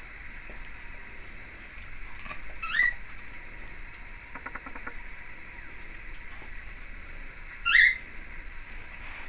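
A dog gives two short, high whines that rise in pitch, about five seconds apart, with a quick run of soft clicks between them.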